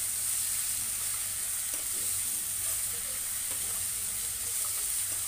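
Chopped onions and ground green masala sizzling in oil in a kadai, stirred steadily with a steel spatula, with a few light scrapes and taps of the spatula against the pan. They are being fried only lightly.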